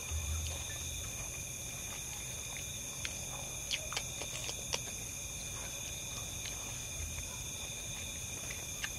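Night insects, crickets, singing in a steady high-pitched chorus at several pitches at once, with a few faint clicks here and there. The sound cuts off suddenly at the very end.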